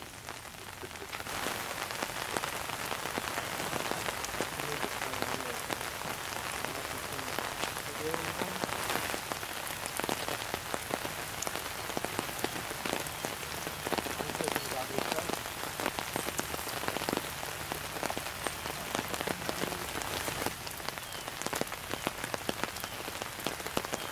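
Steady rain falling, a dense patter of drops that picks up about a second in and then holds steady.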